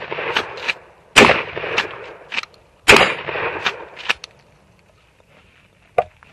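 Three shotgun shots about a second and a half apart, the first right at the start, each followed by a few fainter sharp cracks. A single short click near the end.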